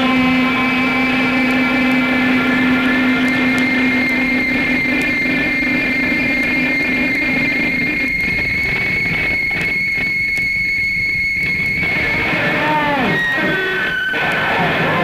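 Power electronics noise music: a loud, dense wall of distorted noise with steady held whining tones. In the last few seconds several tones slide downward in pitch.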